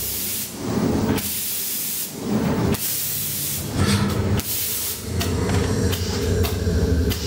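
Repeated bursts of loud hissing, four in the first five seconds and each about a second long, with a low rumble between them.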